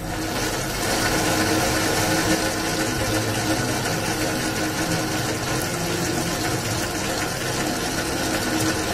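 Famag Grilletta spiral dough mixer, driven by an inverter motor, switches on and runs steadily, its spiral hook turning a small batch of dough in the steel bowl.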